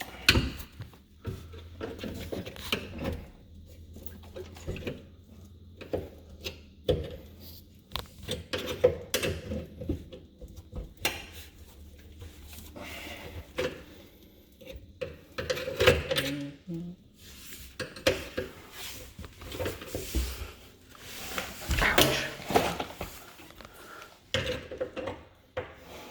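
Metal tools clinking, knocking and scraping against a garbage disposal and its sink mounting ring as the old unit is worked loose: a run of irregular clanks with louder bursts now and then.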